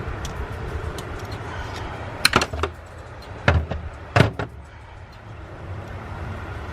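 A few sharp knocks and clunks: a quick pair a little after two seconds, one about three and a half seconds in, and another quick pair just after four seconds, over a steady low hum.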